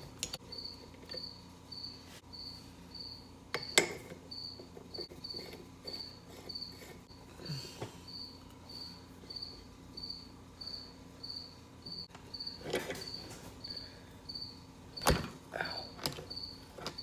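A cricket chirping steadily in an even, repeating rhythm. A few sharp knocks and clicks of parts being handled stand out over it.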